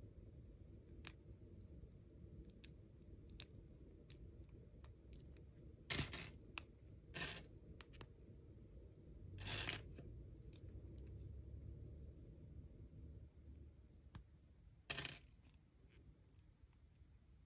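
Small plastic LEGO pieces being pried apart by hand: scattered faint clicks and snaps, with a few louder clacks about 6, 7, 9 and 15 seconds in.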